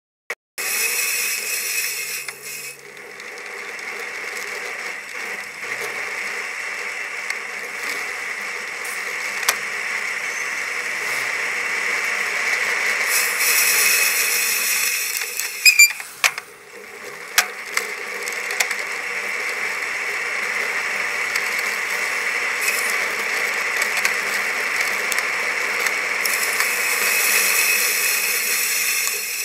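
Bicycle riding on a wet road, sped up to double speed: a steady hiss of tyres and rushing air with mechanical rattling and ticking from the bike. It briefly drops away twice, once near the start and once about halfway, with a few sharp clicks around the halfway mark.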